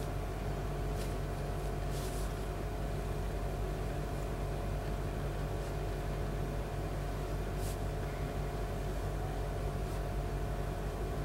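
Steady low electrical or machine hum with a few steady tones in it, unchanging throughout. A few faint, brief swishes stand out about a second in, about two seconds in, and near the middle.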